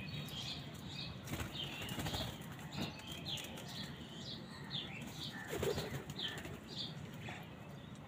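Small birds chirping in short, high calls repeated every second or so, over crows and mynas flapping and fluttering their wings as they hop about feeding; the loudest flutter comes a little past halfway.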